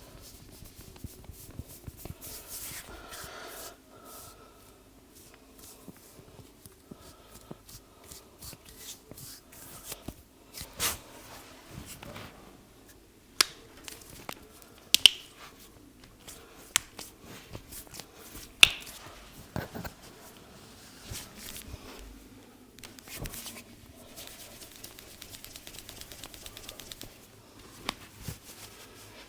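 Head massage by hand: palms rubbing and patting on hair and skin, broken by about half a dozen sharp snaps between roughly 11 and 19 seconds in, the loudest near 15 and 19 seconds.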